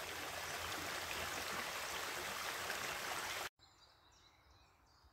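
Small brook running over rocks as it spills out of a stone culvert under a bridge, a steady rush of water. It cuts off abruptly about three and a half seconds in, leaving near silence.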